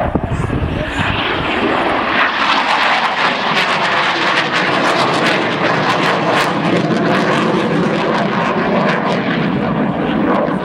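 Engine noise of an aircraft flying a display, a loud steady drone that holds at the same level throughout.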